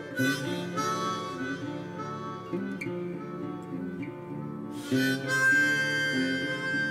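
Background music: a harmonica and guitar tune.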